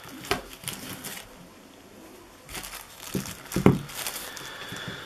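Thin white packaging wrap crinkling and rustling as it is unfolded by hand, in uneven bursts, with the loudest crackle about three and a half seconds in.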